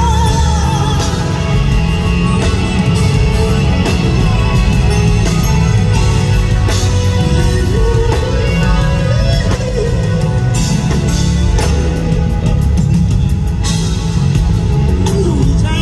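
Live R&B band playing through an arena's amplified sound system, loud and heavy on bass and drums.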